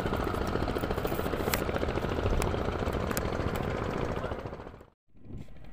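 An engine running with a fast, even pulsing rumble, cutting off abruptly about five seconds in.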